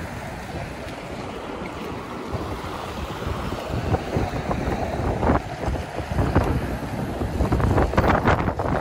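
Wind buffeting the microphone, a low rough rumble that grows louder and more broken up near the end.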